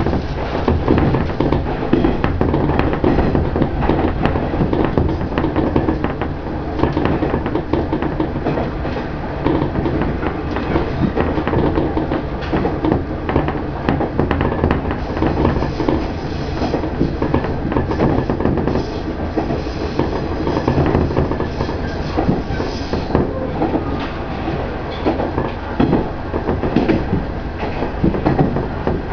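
KiHa 110 series diesel railcar heard from the cab while running: steady diesel engine drone with wheels clicking over rail joints. A high wheel squeal comes in partway through as it rounds a curve.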